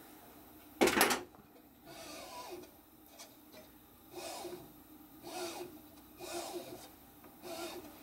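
A tool is set down with a sharp clatter about a second in. Then the Prusa i3 Mk3's heatbed is pushed back and forth by hand about five times, roughly a second apart, its Y carriage sliding along the steel rods on freshly fitted Igus Drylin plastic bushings. Each stroke gives a rubbing slide with a short rising and falling hum.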